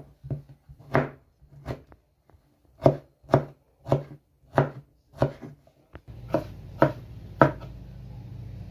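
Kitchen knife dicing strawberries on a wooden cutting board: sharp, irregular knocks of the blade striking the board, about one or two a second. About six seconds in, a steady low hum comes in underneath the chopping.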